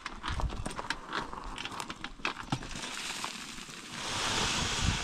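A loaded wheelbarrow rattles and clicks over stony ground. Near the end it is tipped, and its load of soil pours out onto rocks with a steady rush of sliding earth.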